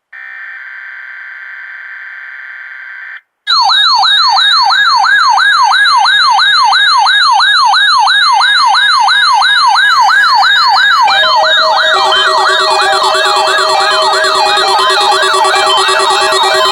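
Weather radio alert sequence for a required weekly test: about three seconds of buzzing SAME digital header data, a short gap, then a loud siren-like alarm tone warbling up and down about three times a second. About eight seconds into the alarm, steady tones sound alongside the warble.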